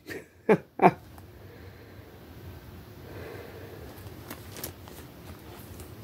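Two short breath sounds near the start, then faint handling of a credit-card-sized lockpick tool, with a couple of light clicks, over low room noise.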